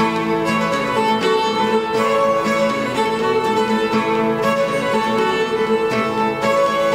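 Old-time fiddle tune played on a bowed fiddle, with an acoustic guitar strumming the rhythm underneath.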